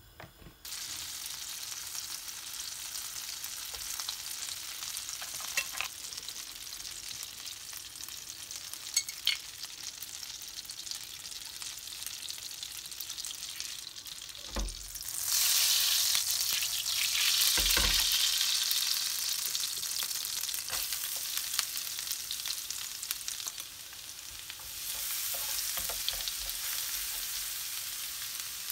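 Butter sizzling in a hot nonstick frying pan, starting under a second in as the spoonful drops in. About halfway through, after two dull thumps, the sizzle grows much louder as minced garlic fries in the foaming butter, and it swells again near the end as the garlic is stirred.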